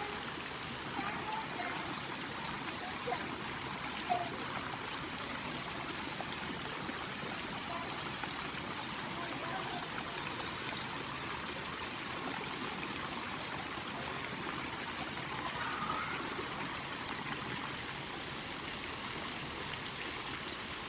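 Steady splashing and trickling of water streaming down into a swimming pool, with a few sharper splashes as a swimmer moves through it.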